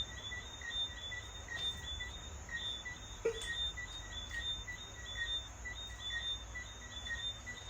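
Insects chirping steadily, about three short chirps a second, over a low background rumble, with a single brief knock about three seconds in.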